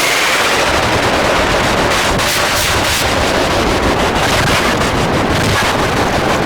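Harsh noise music: a loud, unbroken wall of distorted static with dense crackling and sputtering bursts throughout.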